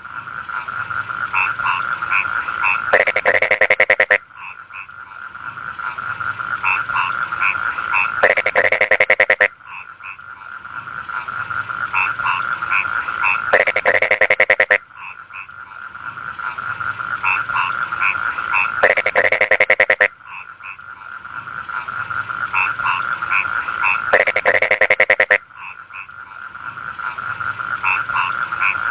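Rice-field frogs croaking in a dense chorus with a steady trilling hum. About every five seconds a loud, rapid, rattling pulsed call cuts in for about a second, and the same pattern repeats over and over.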